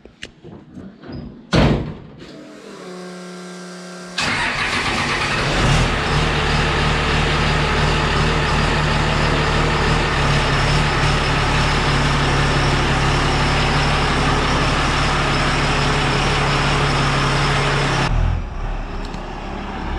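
Triple-turbo 12-valve Cummins 5.9 inline-six diesel cranking with a short rising whine and firing about four seconds in, then running loud and steady with a hiss over the diesel idle. A loud thump comes before it, and near the end the sound shifts as the truck pulls forward.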